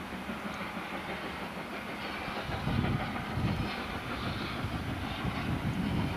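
Distant steam locomotive working a train, a steady rumble and hiss, with louder low rumbling from about two and a half seconds in.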